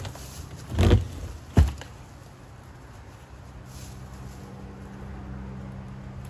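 Plywood dog-house roof panel being lifted off and set down on its edge: a heavy wooden thud about a second in, then a sharp wooden knock, the loudest sound. A low steady hum follows.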